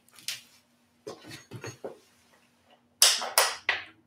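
Hands working on an unboxed e-bike: a click, a few light knocks, then a loud rustling scrape about three seconds in, over a faint steady hum.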